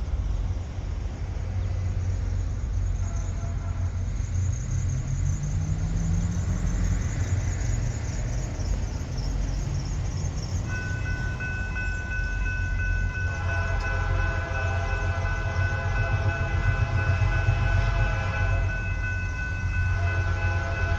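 Diesel freight locomotive rumbling under power, its engine pitch rising slowly in the first few seconds; the uploader says its turbocharger was failing. About halfway through its air horn starts blowing a steady chord, which grows fuller a few seconds later and keeps sounding, with a short dip near the end.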